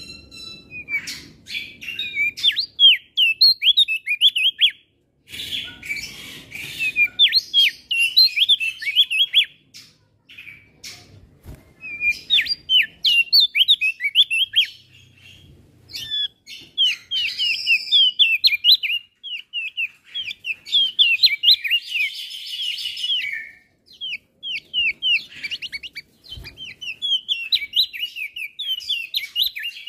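Male opior jambul, a white-eye, singing fast, busy song. Rapid runs of short, high chirping notes come in bursts, with brief pauses between them.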